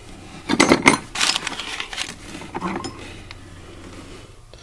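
Loose metal hand tools clinking and clattering against each other as they are rummaged through in an old toolbox. There is a quick flurry of knocks about half a second to a second and a half in, another short clatter a little later, then only a stray click.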